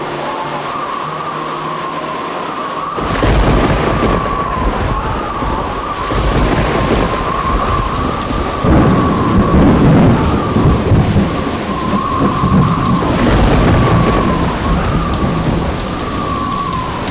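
Thunderstorm: steady heavy rain with rolling thunder, the first rumble starting about three seconds in and more following through the rest. A wavering high whistle runs through it.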